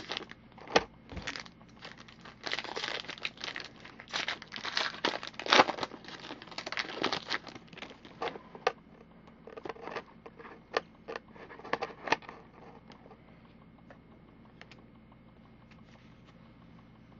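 Wrapper of a baseball card pack crinkling and tearing as it is opened and the cards handled. Dense rustling fills the first eight seconds, then scattered sharp crinkles follow, fading to faint ticks after about twelve seconds.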